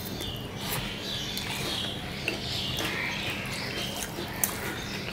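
Close-up eating sounds of two people eating rice and curry with their hands: wet chewing and lip smacking, with one sharp click about four and a half seconds in.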